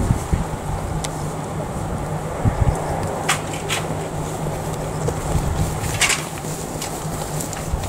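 Wind buffeting the microphone over a steady low hum, with a few short, sharp clicks.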